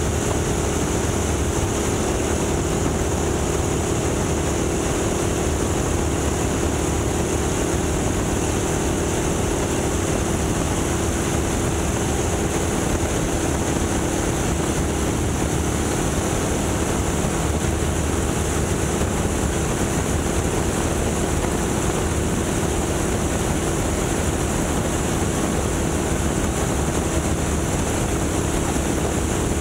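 Boeing Stearman biplane's radial engine and propeller running steadily under power in a climb, with the rush of the open-cockpit slipstream on the microphone.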